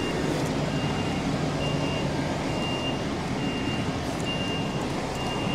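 Lorry reversing alarm beeping steadily, one short high beep about every second, over the low, even running of a lorry's diesel engine while it manoeuvres.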